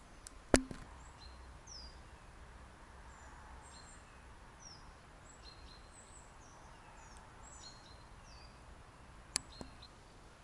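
Small birds chirping, with short high whistled and gliding calls scattered throughout over a faint outdoor hiss. A sharp click about half a second in and a smaller one near the end.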